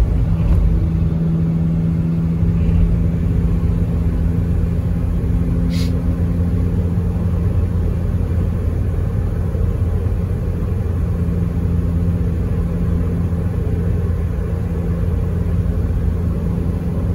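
Steady road rumble and engine drone heard inside a moving car.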